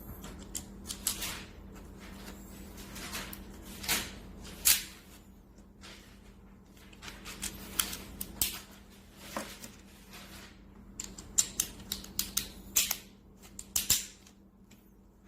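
Terminal crimping tool being worked, giving irregular sharp clicks and snaps, a flurry of them near the end, over a steady low hum.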